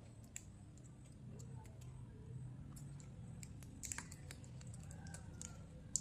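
Close-miked chewing, crisp little clicks and crackles scattered throughout, with a cluster about four seconds in and a sharp click at the end.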